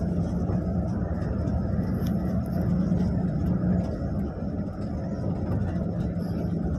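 Bus engine and road noise heard inside the cabin while driving: a steady low drone with an engine hum that drops away about four seconds in and comes back shortly before the end.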